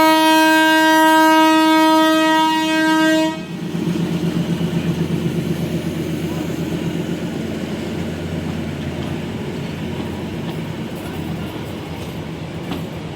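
Darjeeling Himalayan Railway toy train sounding a long, loud whistle that stops about three seconds in. The train then runs on with a steady rhythmic beat of about three a second, slowly fading.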